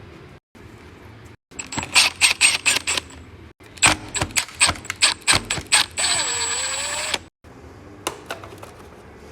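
Rapid clicking and rattling of the Shark vacuum's plastic housing as it is worked apart by hand, in two runs, then a steady whir lasting about a second, followed by a few single clicks.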